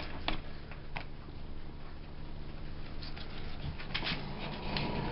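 Quiet knife-and-fork handling as a carving knife slices through tender slow-cooked ham on a paper plate, with a few light clicks of the blade and fork against the plate.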